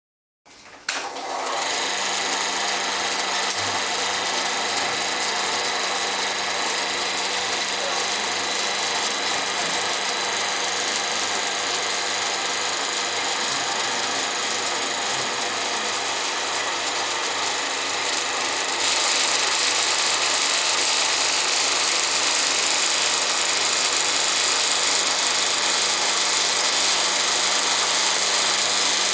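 Film projector running: a steady mechanical clatter of the film transport over a constant low hum. It starts about a second in and grows louder and brighter about 19 seconds in.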